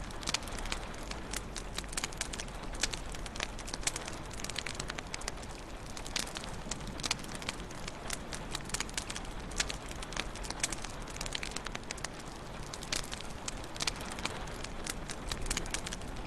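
Wood fire crackling in a fireplace: irregular sharp pops and snaps, many a second, over a steady low hiss and rumble of burning.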